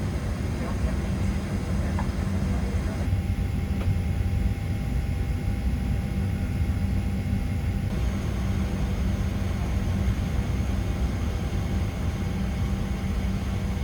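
Cabin noise inside a Boeing 767-300ER with its twin turbofans at low power: a steady low rumble with faint, steady whining tones above it.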